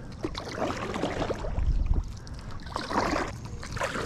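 A paddle pulled through lake water from a stand-up paddleboard, with repeated strokes splashing and trickling as the blade dips and lifts out.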